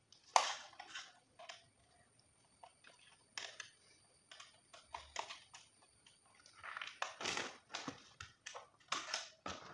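Scattered light clicks, taps and rustles of hands handling a plastic RC transmitter, with a denser run of handling noise about seven seconds in.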